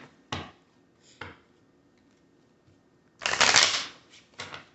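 A deck of tarot and oracle reading cards being shuffled: a couple of soft taps, then a loud papery burst of shuffling about three seconds in and a few shorter rustles near the end.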